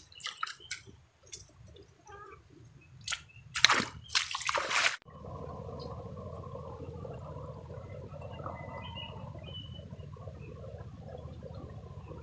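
Footsteps scuffing and splashing along a wet, water-covered path, with a few louder splashes or rustles between three and five seconds in. About five seconds in the sound cuts to a steady rushing noise.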